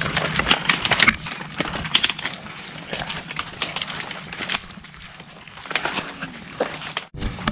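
Footsteps walking along the shore, heard as a steady run of irregular crunches and clicks that breaks off abruptly for a moment near the end.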